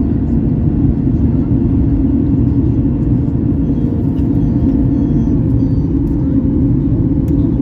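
Steady cabin rumble of a Boeing 737-8200 climbing out after takeoff: its CFM LEAP-1B turbofans and the rush of air, heard from inside the cabin over the wing, with a faint steady hum on top.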